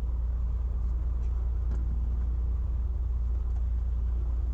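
Piper Cherokee Six's piston engine idling on the ground, a steady low drone heard inside the cabin, with a couple of faint clicks about a second in.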